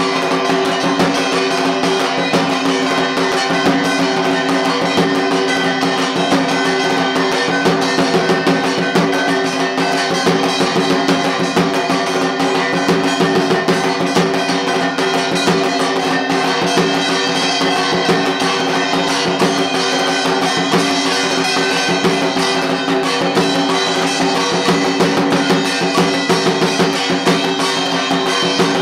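Loud, continuous drum-led music with a fast, dense beat and sustained ringing tones behind it.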